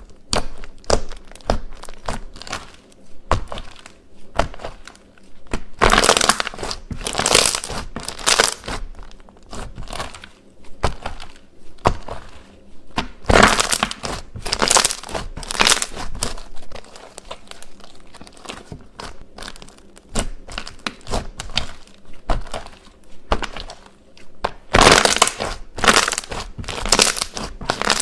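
Slime being squished and pressed by hand, giving many short sticky clicks and pops in irregular bursts, louder in a few spells.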